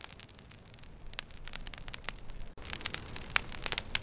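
Wood fire crackling: irregular sharp pops over a steady hiss. The pops grow denser and louder after a brief drop about two and a half seconds in.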